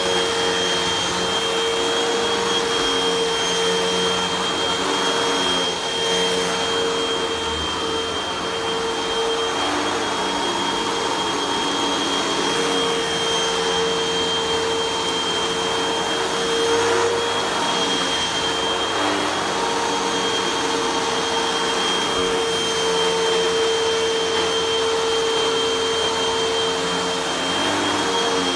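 Upright bagless vacuum cleaner running on carpet while it is pushed back and forth, its brushroll working the pile: a steady motor rush with a constant high whine.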